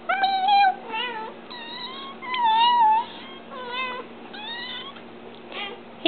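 Young kittens mewing, about seven short high-pitched mews with wavering pitch, the loudest and longest about two and a half seconds in.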